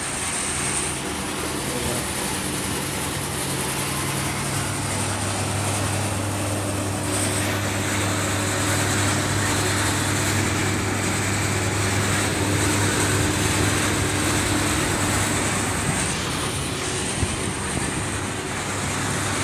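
Stainless steel parts washer running its wash cycle: an electric pump hums steadily while hot water sprays inside the cabinet. The hum grows stronger about four and a half seconds in.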